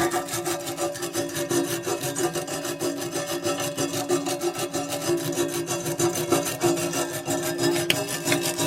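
A parts brush scrubbing a resin-gummed table saw blade with dish soap, in rapid back-and-forth strokes, with a steady hum underneath.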